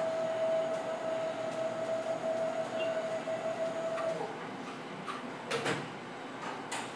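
Radiotherapy linear accelerator's gantry rotating around the patient couch with a steady motor whine that stops about four seconds in, followed by a few sharp mechanical clicks.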